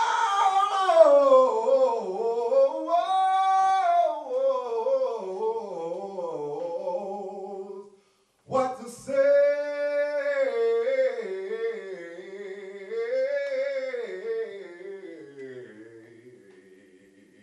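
A man singing a cappella without words, in long held phrases with wavering, sliding pitch. There is one short break for breath about halfway through, and the last phrase fades away near the end.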